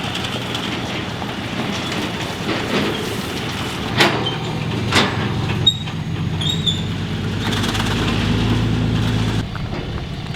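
An engine running steadily, with a few sharp clicks around the middle; its low hum grows stronger near the end.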